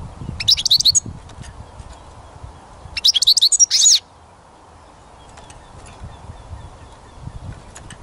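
European goldfinch singing: two short bursts of rapid, high twittering song, the first about half a second in and the second lasting about a second from three seconds in. A low rumble runs underneath, and faint distant bird notes follow.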